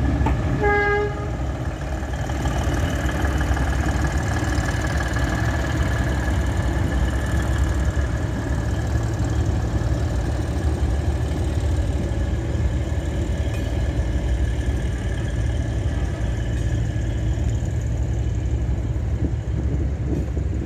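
A train's horn gives one short toot about half a second in, then a towed passenger railcar train rolls slowly past with a steady low rumble.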